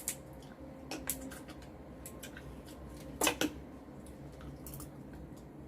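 Scattered clicks and knocks of seafood being eaten by hand, shells and utensils handled at the table, with one louder knock about three seconds in.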